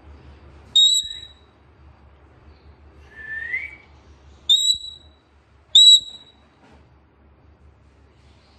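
Parrot whistling: three short, sharp, high-pitched whistle notes, with a softer upward-sliding whistle between the first and second.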